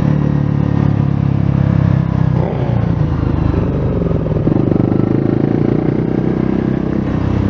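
Motorcycle engine running while riding, with the revs rising and falling for a couple of seconds a third of the way in, then settling steady.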